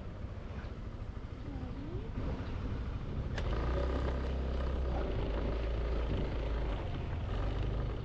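Yamaha Aerox 155 scooter riding over a broken road: the engine runs under a heavy wind rumble on the microphone, which grows stronger about three and a half seconds in. A single sharp knock comes just before that.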